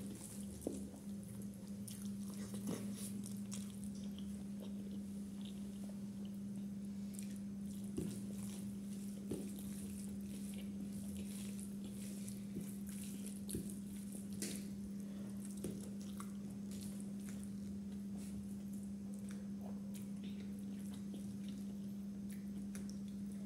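A person eating chicken biryani by hand: chewing and lip smacking, with scattered small clicks and squelches of fingers working the rice, over a steady low hum.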